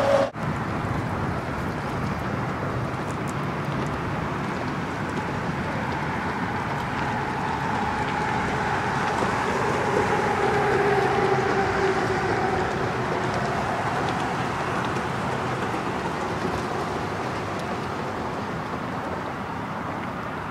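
Steady drone of road traffic on a highway bridge. About ten seconds in, one vehicle swells louder and its pitch slowly falls as it passes.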